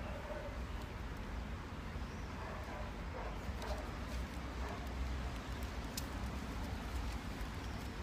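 Steady low background rumble with faint, indistinct sounds, and a single sharp click about six seconds in.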